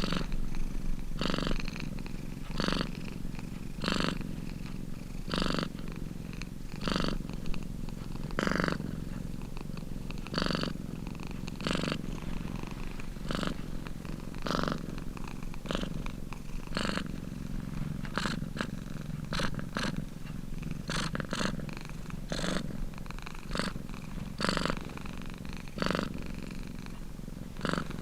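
Domestic cat purring close up: a steady low rumble that swells louder about every second and a half.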